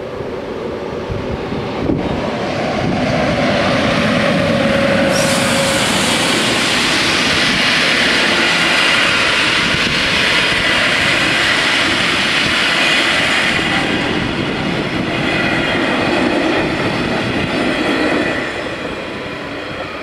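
SJ InterCity passenger train passing over a level crossing, its wheels running on the rails. The sound rises about two seconds in, holds steady while the coaches go by, and falls away near the end.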